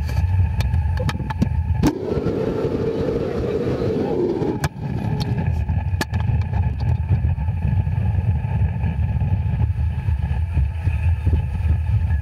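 Tour motorboat's engine running at speed: a steady low rumble with a hum. About two seconds in, the rumble gives way for a few seconds to a rushing noise. A few sharp clicks are scattered through.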